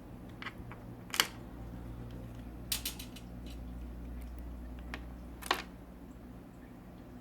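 Scattered sharp clicks and light taps of small parts being handled and fitted during reassembly of an appliance, the loudest about a second in, over a steady low hum.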